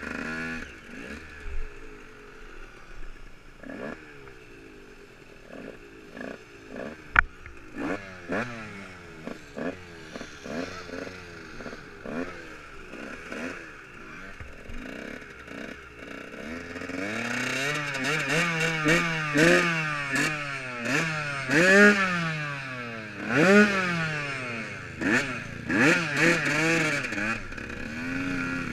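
Off-road dirt bike engine under way, its revs rising and falling over and over as the throttle is opened and closed. It grows much louder about halfway through, with strong repeated rev swells. A single sharp knock stands out about a quarter of the way in.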